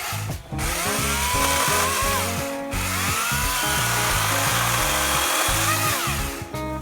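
Kobalt 80V brushless electric chainsaw cutting wood in two long runs, its motor whine dipping in pitch as it works, with a short break between them.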